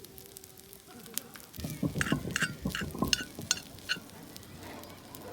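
A run of clattering and clinking, like tableware or cooking utensils knocking against dishes and a pan, from about a second and a half in until about four seconds in. It includes several short ringing clinks.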